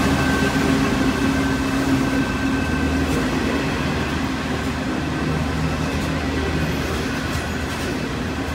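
A freight train of hopper wagons rolling past at speed, its steel wheels rumbling steadily on the rails. The hum of the diesel locomotives at its head fades as they draw away.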